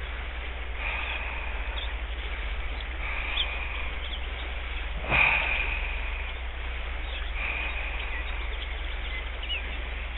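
Steady rush of a shallow river riffle, with small birds chirping and singing over it. About five seconds in comes a sudden, louder burst of sound that fades over about a second.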